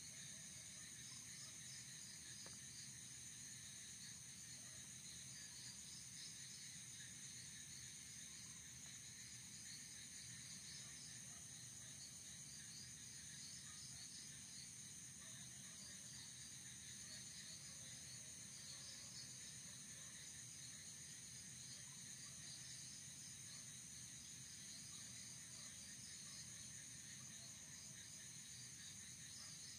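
Faint night chorus of crickets and other insects: a steady high-pitched trilling with a quicker, pulsing chirp just below it, unbroken throughout.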